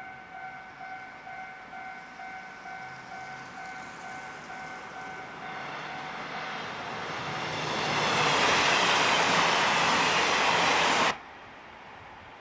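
A level crossing warning bell dings about twice a second while a train approaches. The train passes over the crossing, its rush growing loud enough to drown out the bell. The sound then cuts off suddenly about a second before the end.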